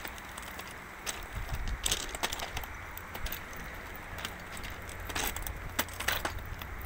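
Irregular crunching clicks of footsteps on crushed-stone railway track ballast, over a steady rush of a fast, flooded river with some wind rumble on the microphone.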